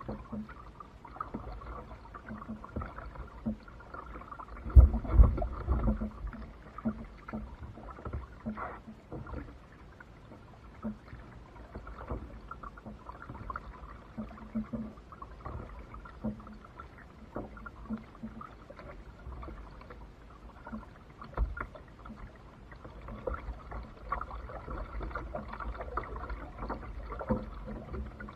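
Kayak paddling on calm water: paddle blades dipping and dripping, with scattered small knocks against the kayak's hull. A heavy thump about five seconds in is the loudest sound, with a smaller one later.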